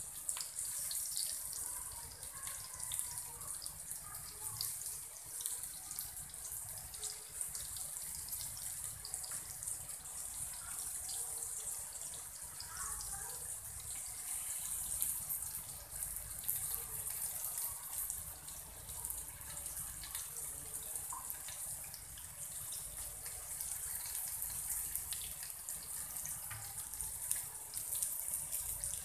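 Rava- and rice-flour-coated surmai (kingfish) slices shallow-frying in oil on a cast-iron tawa: a steady hissing sizzle with small crackles throughout, as pieces are laid into the hot oil one by one.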